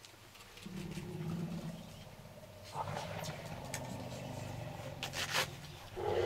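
African elephants calling: a low, steady rumble about a second long, then a longer low rumble, and a louder, higher call at the very end.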